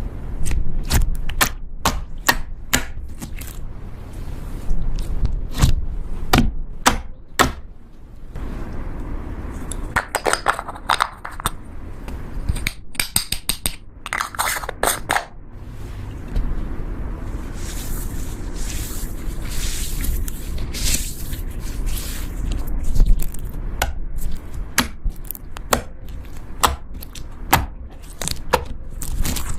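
Slime being worked and handled: a long run of sharp clicks and pops with scraping, and a few louder, noisier stretches in between.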